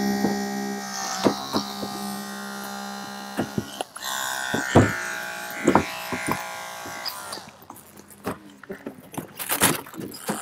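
Holmatro hydraulic rescue tool's motor running with a steady whine, stopping about two seconds in. Sharp clicks, snaps and metallic creaks follow as the tool works on the car's sheet metal.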